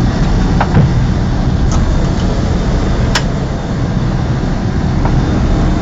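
Loud steady flight-deck noise of an Airbus A300 at takeoff power during its takeoff, a rush of engine and airflow noise over a low hum. A couple of brief clicks come about half a second in and near the three-second mark.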